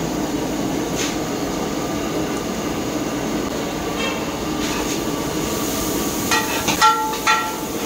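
Steady low roar of commercial kitchen equipment running. Near the end there are a few short ringing metallic clinks.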